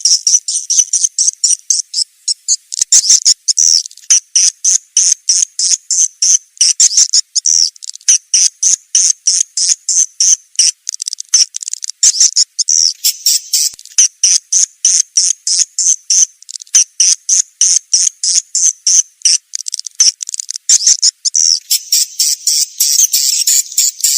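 Recorded swiftlet lure call: a rapid, unbroken series of short, high-pitched chirps from white-nest swiftlets, about two to three a second. It is the call played to attract swiftlets to a nesting house.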